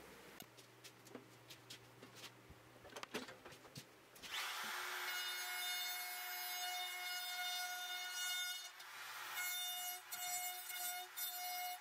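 A few light clicks and knocks, then about four seconds in a compact trim router switches on and runs with a steady high whine as it cuts wood.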